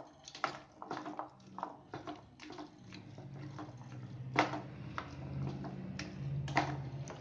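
A spoon stirring thick chickpea and potato curry in a steel pot: soft scraping and small clicks, with two sharp knocks against the pot in the second half. A low steady hum comes in behind it from about halfway.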